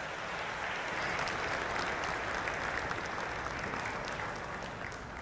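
Audience applauding, swelling over the first second or so and fading toward the end.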